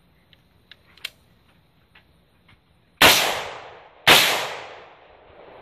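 Two gunshots about a second apart, each a sharp crack that trails off over roughly a second of echo, after a few faint ticks.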